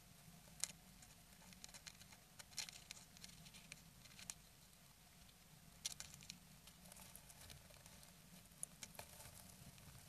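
Faint, irregular scratchy rustles and clicks as a brooding bird shifts on its nest of dry grass and fibres inside a wooden nest box, heard over a faint steady low hum.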